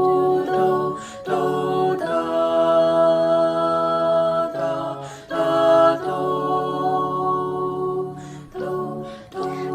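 An a cappella vocal ensemble singing sustained chords, shifting to a new chord every second or few, with short breaks between phrases.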